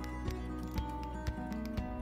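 Background music: held chords over a steady beat of about two strokes a second.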